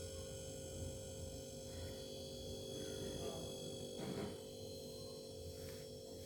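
Steady electrical hum with a constant low drone and fixed overtones, and a brief faint knock about four seconds in.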